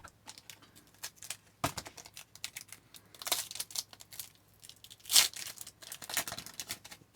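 Crinkling and tearing of trading-card pack wrapping and cards being handled, in short scattered bursts, the loudest about five seconds in.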